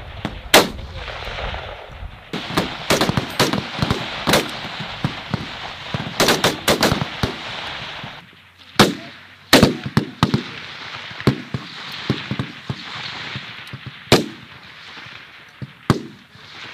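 Single rifle shots from a firing line of 5.56 mm M16A2 rifles and M4 carbines, irregularly spaced, some sharp and close, others fainter. There are well over a dozen shots, with a quick cluster of them around the middle.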